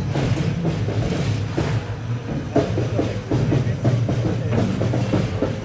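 Steam locomotive 310.23 turning on a depot turntable: a steady low rumble with irregular knocks and clanks.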